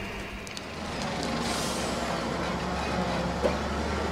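Heavy vehicle engine running steadily, with a short burst of hissing about a second and a half in.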